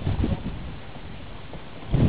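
Steady outdoor rush of wind on the microphone and river water around the canoes, with a few soft low knocks in the first half second.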